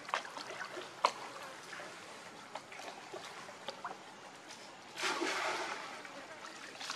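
Water splashing and trickling as two monkeys, a baby and its mother, swim through a pool, with scattered small splashes and drips. A louder rush of splashing about five seconds in lasts a second or so.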